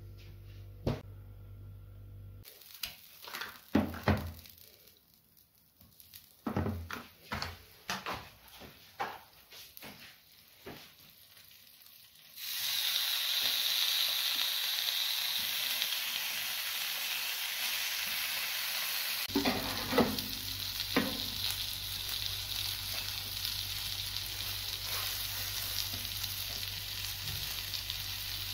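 A few scattered knocks and handling sounds, then, about twelve seconds in, a chicken ballotine and a knob of butter begin sizzling in hot oil in a nonstick pan. The frying hiss is steady, with a few light utensil taps partway through.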